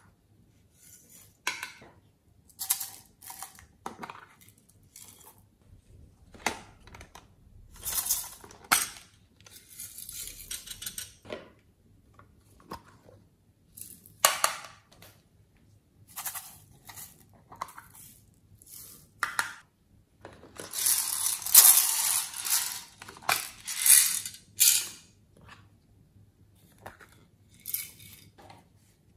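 Sequins, glitter and sprinkles rattling inside hard plastic containers as they are shaken and tapped out into a glass dish of slime. The sound comes in a series of short bursts with pauses between, and one longer, louder bout of shaking about two-thirds of the way through.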